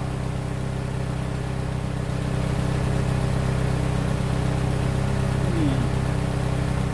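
Ford GPW jeep's four-cylinder flathead engine idling steadily.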